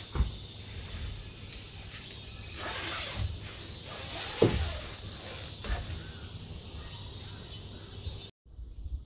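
Steady shrill insect buzzing with a constant high pitch that cuts off abruptly near the end, with a few soft low bumps about a second in and around the middle.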